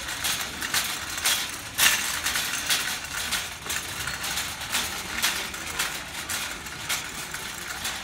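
Wire shopping cart rolling across a hard store floor, rattling with short clicks about twice a second. The loudest click comes about two seconds in.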